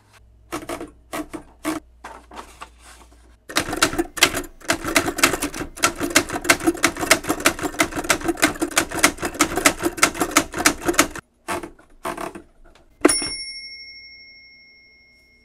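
Smith-Corona Super-Speed manual typewriter being typed on: a few separate keystrokes, then a fast, even run of key strikes for about seven seconds, then a couple more. Near the end a bell dings once and rings out.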